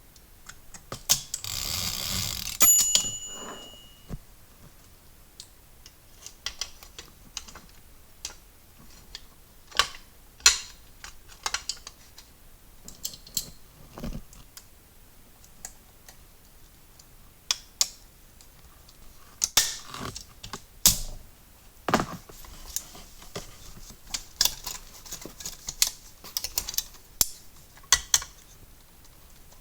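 Clicks, taps and light knocks of a manual typewriter's metal parts being handled and fitted during reassembly. About a second in comes a hiss lasting roughly two seconds, followed by a brief ringing tone.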